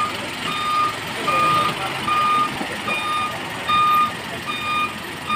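Isuzu Elf truck's reverse alarm beeping steadily, a little faster than once a second, as the truck backs up, with its 4HL1 diesel engine running underneath.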